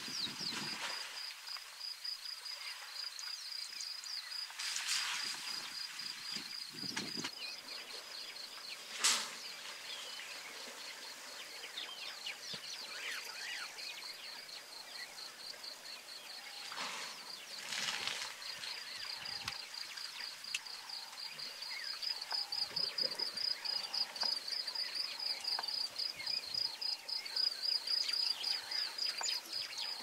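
Savanna ambience: an insect trilling steadily in a fast even pulse, getting louder in the second half, with scattered bird chirps. A few brief noises stand out, the sharpest a click about nine seconds in.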